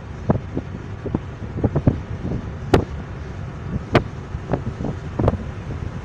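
Steady road and wind rush from a moving car, heard from the passenger seat, with irregular wind buffets thumping on the microphone and two sharper knocks, a little under three seconds in and at four seconds.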